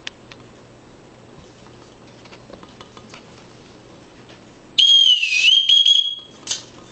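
A loud, shrill whistle starts about five seconds in, holding one high note, dipping briefly in pitch and rising back, for about a second and a half, then a short second toot just after.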